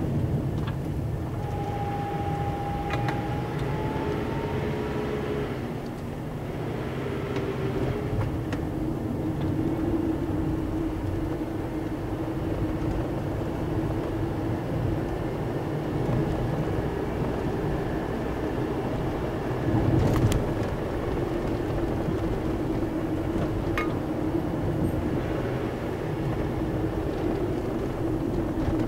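Car engine and tyre noise heard from inside the cabin, driving slowly along a narrow lane, steady throughout. A single sharp knock about twenty seconds in.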